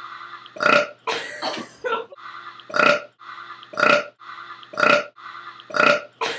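A girl's voice making a string of short, loud non-speech vocal bursts, most about a second apart, with softer sounds in between.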